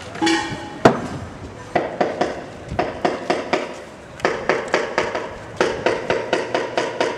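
Hammer blows at a building site: runs of quick, ringing strikes, about four or five a second, with one louder single blow about a second in.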